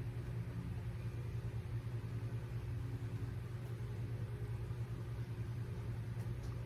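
A steady low mechanical hum, even throughout, with faint fainter tones above it.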